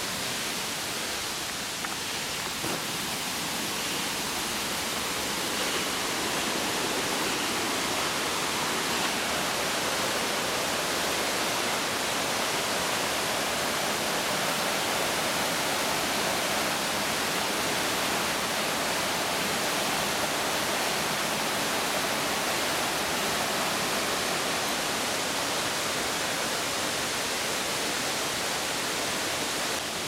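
Steady, even rush of mountain water from a stream or falls in the gorge below the trail.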